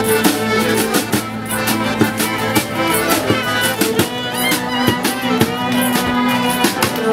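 Street band playing a lively tune on violin, accordion, cello and acoustic guitar over a steady drum beat.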